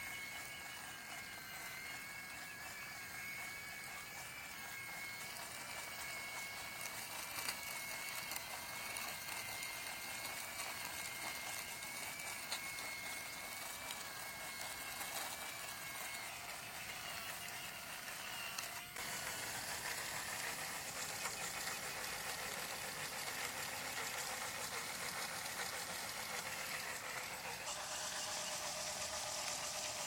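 Small brushed DC motor driving a miniature concrete pump, running with a steady high whine and a light rattle from the mechanism. About two-thirds of the way through the sound turns suddenly brighter and noisier.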